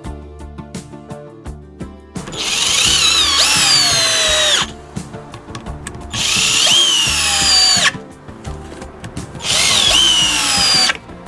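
Favourite DC 1802 cordless drill/driver running in three separate bursts of a few seconds each, its motor pitch sagging just before each stop. Background music plays underneath.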